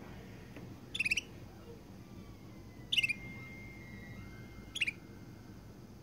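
A Russian canary giving three short chirps about two seconds apart, each a quick cluster of notes falling in pitch.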